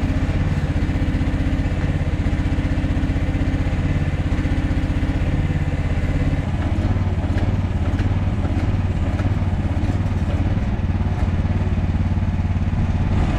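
Chinese mini excavator's engine running steadily, with scattered clanks and knocks from about halfway through.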